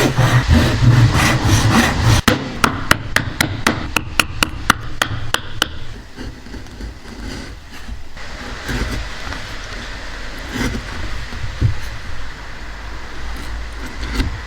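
A fast, regular run of hammer blows on wood, about four strikes a second for three or four seconds, followed by a quieter, steady scraping.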